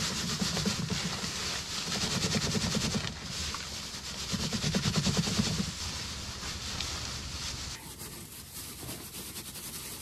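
Hands rubbing straw back and forth over a 1/8-inch hardware-cloth screen, a dense scratchy rustle of straw dragging on wire mesh. It swells three times in the first six seconds and gets quieter about eight seconds in. The straw is being sifted to strip out larger stems and seeds.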